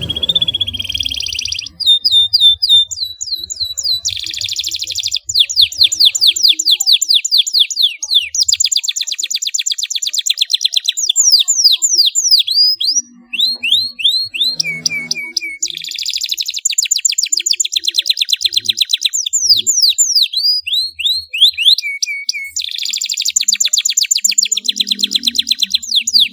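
Domestic canary singing long rolling trills: fast runs of repeated chirps and quick down-sweeping whistled notes, high-pitched, broken by a few brief pauses.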